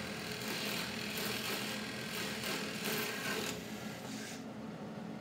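Drill press boring into plywood with a Forstner bit: the motor hums steadily under the scraping noise of the bit cutting, and the cutting noise drops away about four seconds in.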